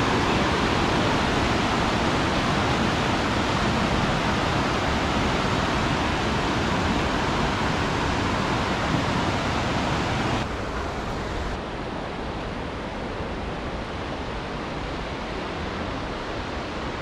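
Steady rushing of a rocky mountain creek running in whitewater rapids. About ten seconds in it drops to a quieter, more distant rush.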